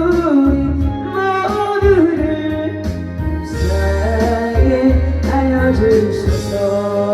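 A Korean church hymn sung with instrumental accompaniment, long held notes at the song's close.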